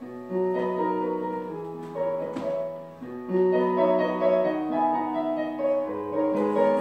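Slow solo piano accompaniment music, with held chords that change every second or two.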